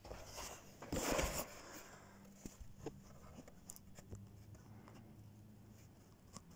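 Handling noise from a phone being set in place: a brief scraping rustle about a second in, then a few faint ticks over a quiet, steady room hum.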